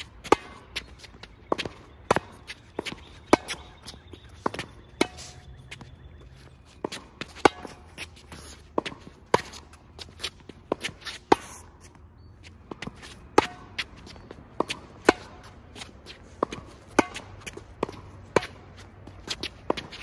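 Tennis volley rally: a ball struck back and forth by rackets over the net, a sharp pop every second or so, the nearer player's hits loudest and the far player's fainter, with shoes shuffling on the hard court.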